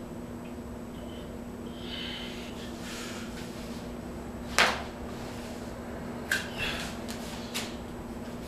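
A person moving about on an exercise mat, with soft rustling, over a steady low hum. A sharp knock comes about halfway through, then a few lighter clicks.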